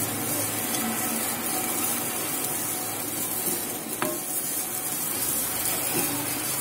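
Wooden spatula stirring grated coconut as it roasts in a non-stick pan over a medium flame: a steady scraping rustle, with one sharp tap of the spatula on the pan about four seconds in.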